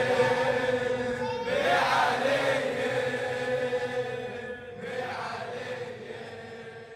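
A choir of voices chanting a long held chord, the closing of a latmiyya lament, swelling twice and then fading out.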